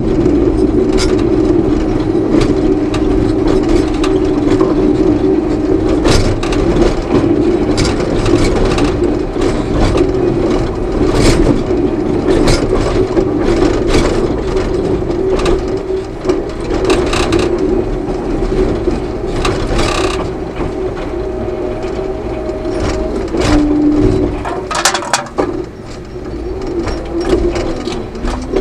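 Cat D6K crawler dozer's C6.6 diesel engine running steadily under load while ripping, heard from inside the cab, with constant clatter and rattling from the tracks and cab. The engine note drops briefly about 25 seconds in.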